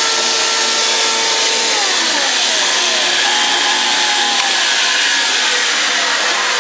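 A Grizzly G1015 knife grinder's motor and a shop vac run together, the vacuum pulling air through the grinder's dust-collector box with a steady rush. About two seconds in, a motor hum slides down in pitch as it spins down, while the vacuum's rush carries on.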